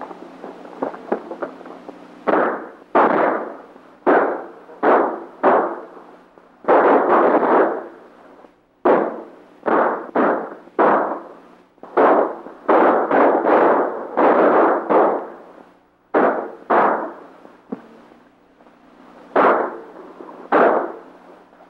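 Gunfight: about twenty gunshots fired at irregular intervals, some in quick runs of two or three, each dying away briefly, over the steady low hum of an old film soundtrack.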